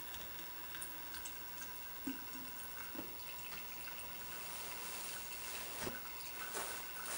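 Fuel trickling and dripping through a Dellorto carburettor jet into a plastic measuring cylinder during a gravity flow test, faint and steady. A few light knocks as the fuel bottle is handled and set in place.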